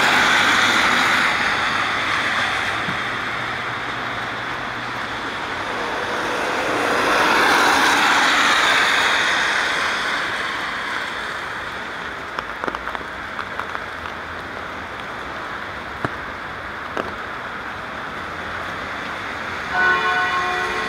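Cars passing on a rain-soaked road, their tyres hissing through the water: one swell of tyre noise at the start and another about eight seconds in. A few light ticks follow, and a short horn-like tone sounds near the end.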